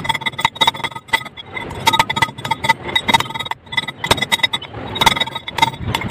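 Stick-welding arc crackling irregularly over a steady electrical buzz, as a steel nut is welded onto a threaded rod.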